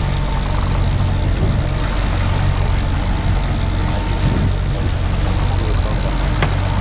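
Twin 100 hp outboard motors running steadily under way, a constant low hum over wind and water noise. A single sharp click about six seconds in.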